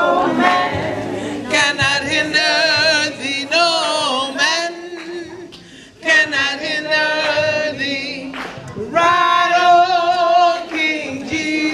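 Unaccompanied singing in long held notes with a wavering vibrato, in two phrases with a short break about six seconds in.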